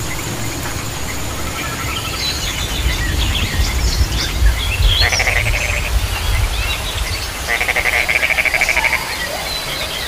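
A frog calling in two rapid rattling pulse trains, a short one about halfway in and a longer one near the end, with birds chirping in the background over a low rumble.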